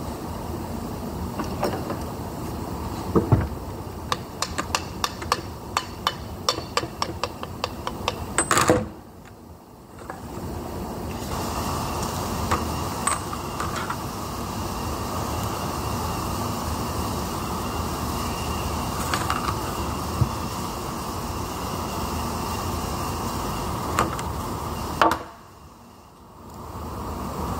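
Steady background hum with a run of quick metallic clicks and taps, about three or four a second, as parts of a small gearbox are handled and fitted. The run ends about a third of the way in with one louder knock, and a few single clicks follow later.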